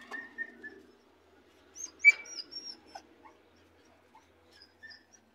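A small dog whimpering in thin, high whines, the sharpest about two seconds in, with clothing rustling against the microphone in the first second.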